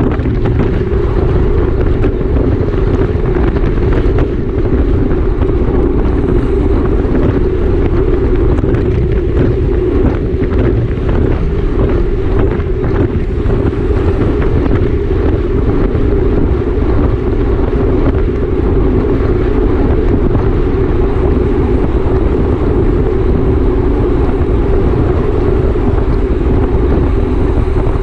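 Steady rush of wind on the microphone from riding a racing bicycle at speed.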